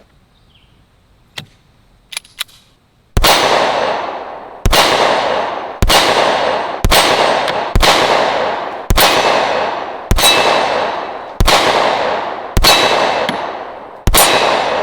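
Ten shots from a Sig Sauer P365XL Rose Comp 9mm pistol, fired at a steady pace about a second and a half apart, starting about three seconds in after a few small clicks. Each shot echoes away, and a steel target rings after the hits.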